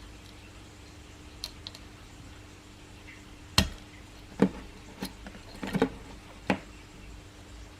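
Small hard parts of a 1:2 scale M4A1/AR-15 miniature replica clicking and knocking as it is handled: a series of sharp clicks, the loudest about three and a half seconds in and a quick cluster near the end, over a faint steady hum.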